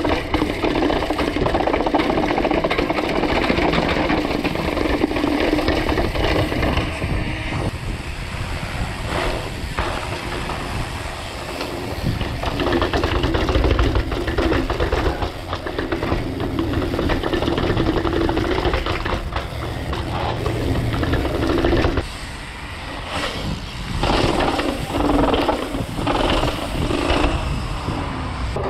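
Mountain bike descending a rough trail: tyres rolling over dirt and rocks and the bike rattling over the bumps, a steady loud rumble that eases briefly about three-quarters of the way through.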